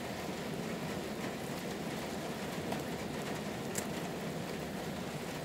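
Steady rain falling, heard from behind rain-spattered window glass, with a faint single tick about four seconds in.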